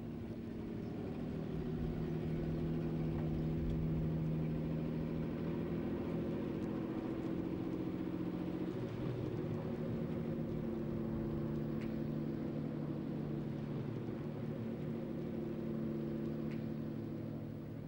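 Piston engine running with a steady drone of several low held tones, briefly unsettled about nine seconds in.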